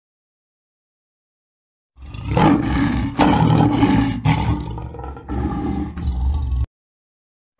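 Lion roaring, starting about two seconds in, with several deep roars over some five seconds, then cut off abruptly.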